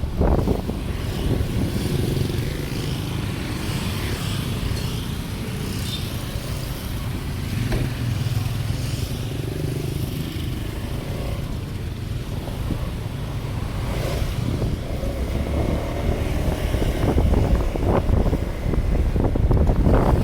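A road vehicle running while travelling, with a steady low rumble and wind buffeting the microphone.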